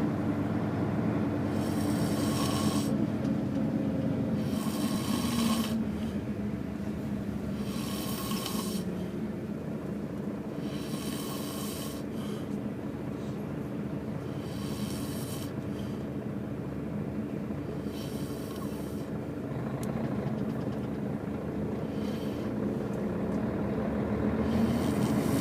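A man snoring, a snore about every three to four seconds, over the steady low hum of a bus engine running.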